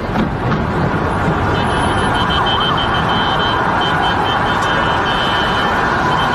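A car alarm sounding: high, pulsing electronic tones start about a second and a half in and keep repeating, over a loud, steady rush of noise.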